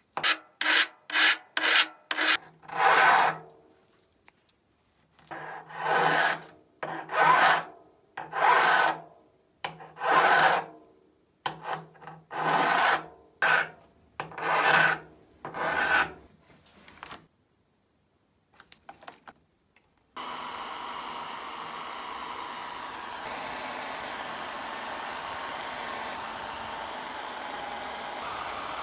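Hand file rasping across the steel jaws of a pair of pliers in about twenty strokes, short quick ones at first, then longer, slower ones. About twenty seconds in, the filing has stopped and a bench drill press starts running steadily with a buffing wheel spinning in its chuck.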